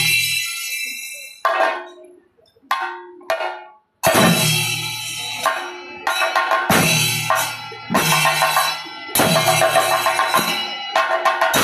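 Chenda drums and ilathalam hand cymbals playing a thayambaka. A few separate strokes with gaps come first, then from about four seconds in comes dense, fast playing in phrases of about a second, each cutting off sharply all together, with the cymbals ringing over the drums.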